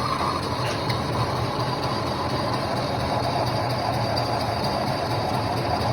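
Metal lathe running steadily, a constant machine hum with a hiss over it.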